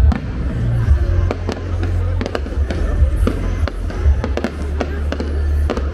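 Fireworks display: a rapid series of sharp bangs and crackles from bursting shells, over loud music with a heavy, steady bass.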